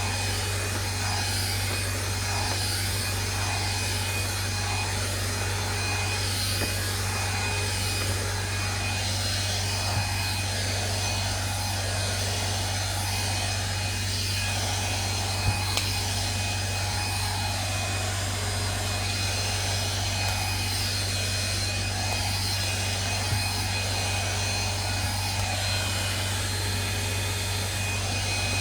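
Hair dryer running steadily: a constant rush of air over an even motor whine and hum, with a few faint clicks.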